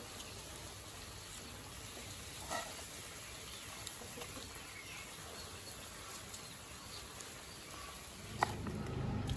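Outdoor village ambience with faint insects and birds, and a few soft clicks of a knife slicing green chillies on a wooden chopping board. A sharper click comes near the end, followed by a louder low rumble.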